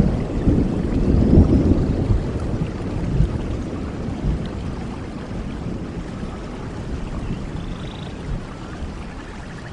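A rumble of thunder dying away slowly over steady rainfall.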